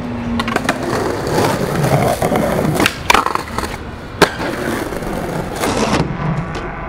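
Skateboard wheels rolling on pavement, broken by the sharp clacks of the board being popped and landing. There are several snaps, and the loudest comes about four seconds in.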